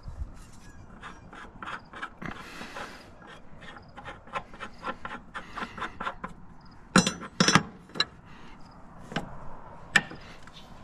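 A wrench working bolts on a grain auger's red steel head housing: a run of quick metallic clicks, about four a second. About seven seconds in come two sharp loud clanks of metal on metal, and two more near the end.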